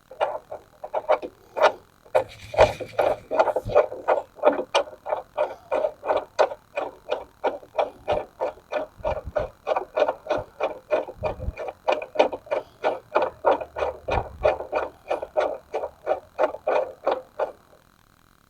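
Rapid, evenly spaced clicking, about three clicks a second, from a tool tightening a crank puller down into an e-bike's crank arm.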